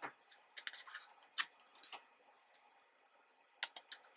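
Faint rustles and light clicks of a DVD set's photo book being handled, in a cluster over the first two seconds, then a quiet stretch, then a few more clicks near the end.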